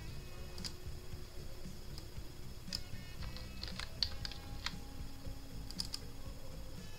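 Computer mouse clicks and keyboard keystrokes while text is selected, copied and pasted between documents. Scattered, irregular single clicks sound over a steady low hum.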